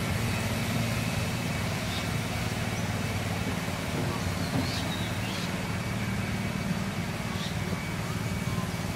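Steady outdoor ambience: a constant low rumble under an even hiss, with a few faint short high chirps about 2, 5 and 7 seconds in.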